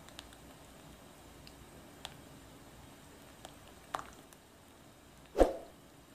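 Silicone spatula stirring a wet cocoa-and-milk mixture in a saucepan: faint soft stirring with a few light ticks against the pan, and one louder knock about five seconds in.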